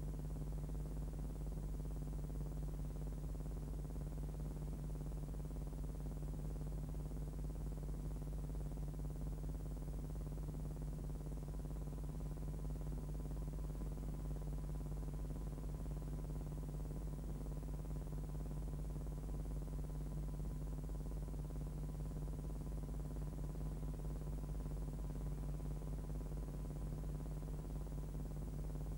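A steady low hum with a faint hiss over it, unchanging, with no sound from the filmed scene: the empty soundtrack of a silent film transfer.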